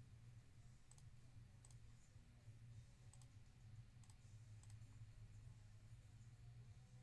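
Near silence: a low steady hum with about five faint, sharp clicks scattered through it.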